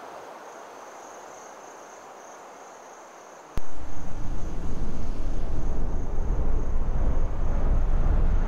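Soundtrack of a night ambience, with crickets chirring in a thin steady high trill. About three and a half seconds in, a sharp click sets off a sudden, much louder deep drone that flutters and keeps swelling.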